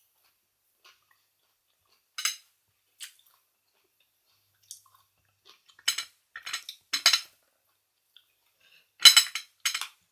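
Tableware clinking and scraping on a plate during a meal: separate sharp clinks at first, then a quick run of them about six to seven seconds in, the loudest about nine seconds in.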